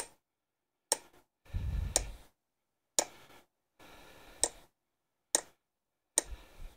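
Ball-pein hammer striking a steel punch against a David Brown 990 gearbox casting: about seven sharp metallic taps, roughly one a second, punching witness marks so the spacer rails go back in the same position.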